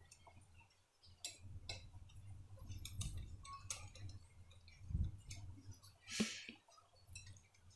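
Wire whisk beating batter in a glass bowl: faint, irregular clicks and clinks of the wires against the glass, with one brief louder swish about six seconds in. The batter is jaggery water mixed thin for pude.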